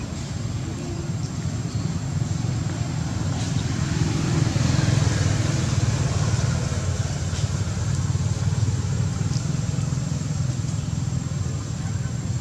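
Low steady rumble of background motor traffic, louder from about four to seven seconds in.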